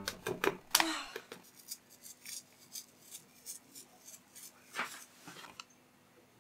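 Dried green seaweed flakes shaken from a small paper packet over rice: a run of light ticks about three a second, with brief rustles of the packet about a second in and again near five seconds.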